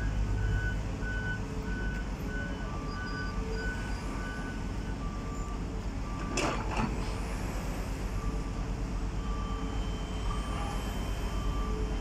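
Heavy diesel construction machinery running steadily, with warning beepers beeping in an even rhythm: a higher, faster beep in the first few seconds and a lower, slower one from about three seconds on. The tipper truck is raising its bed to dump sand. About six and a half seconds in there is a sharp, hiss-like burst of noise, twice in quick succession.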